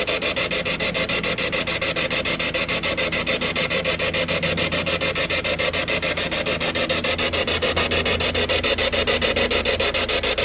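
Spirit box sweeping through radio stations: a steady, rapid, even chopping of static.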